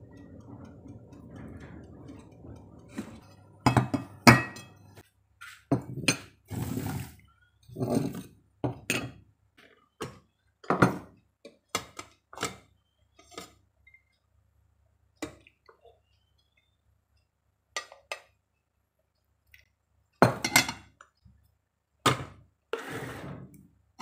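Utensils and crockery clinking and scraping as a spoon works in a metal bowl of curry and rice is scooped from a rice cooker's pot onto a ceramic plate: separate clinks and knocks at irregular intervals, some seconds apart.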